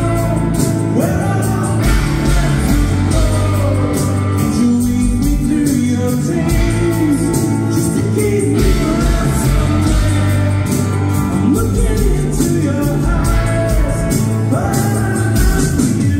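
A rock band playing live: male lead vocals over electric and acoustic guitars, bass and a steady drumbeat, heard from the audience in a large hall.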